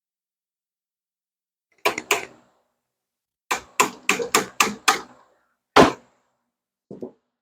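Sharp taps of a hammer driving a shim into the saw kerf at the cut end of a maple board, to keep the kerf from pinching back on the table-saw blade. Two taps, then a quick run of six, then one harder knock and a last faint one.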